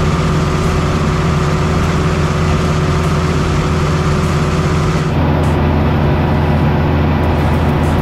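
Lockwood potato harvester running under tow, its machinery and the towing tractor's engine making a loud, steady mechanical hum. The sound shifts slightly about five seconds in.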